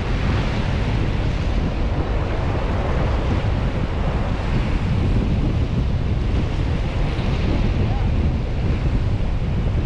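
Wind buffeting the microphone, a steady low rumble, over the continuous wash of surf breaking on the beach.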